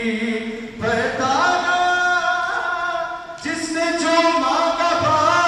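A man singing an unaccompanied naat through a microphone, in long, drawn-out melodic phrases, with brief breaths about a second in and about three and a half seconds in.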